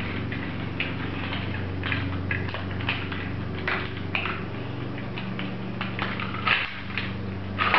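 Irregular small plastic clicks, creaks and scrapes as hands pry at a toy drone's plastic arm and propeller with a white plastic tool, over a steady low hum.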